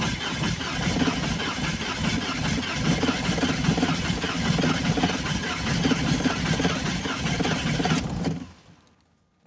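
BMW engine being cranked over by its starter motor without catching, a steady rhythmic churn that stops abruptly after about eight seconds. It is a no-start, which the owner suspects comes from injectors that are not spraying.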